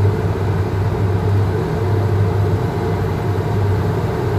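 Steady cockpit noise of a Learjet 35 on final approach: the drone of its two Garrett TFE731 turbofans and rushing air, with a steady low hum.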